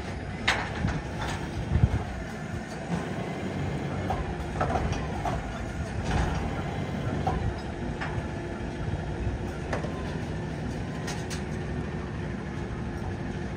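Front-loader garbage truck's diesel engine running steadily while its hydraulic arms raise a carry can overhead to dump it and lower it again. Scattered sharp metal clanks and bangs from the can and hopper are the loudest sounds.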